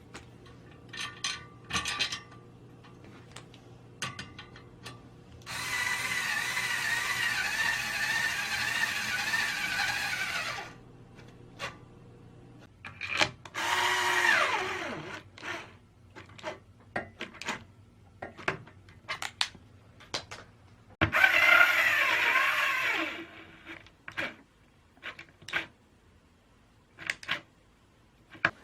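A small electric kitchen appliance motor, such as a hand mixer or food chopper, run in three bursts, the first about five seconds long; the later two wind down with a falling whine as it is switched off. Clicks and knocks of kitchen handling come between the bursts.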